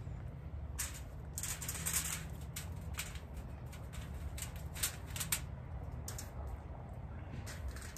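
Aluminium foil crinkling and rustling in irregular bursts as potatoes are handled and arranged on it, over a steady low hum.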